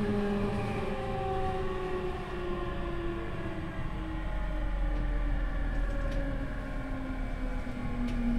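Tokyu 5000 series train's Hitachi IGBT VVVF inverter and traction motors whining, several tones falling in pitch together as the train slows under braking. The motor whine is the loud, shrill type, over a steady low running rumble.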